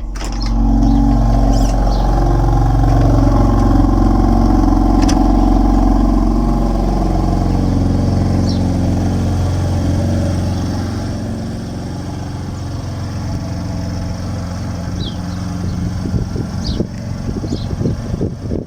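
A car engine running, louder for the first ten seconds or so and then settling a little lower, with a few short knocks near the end.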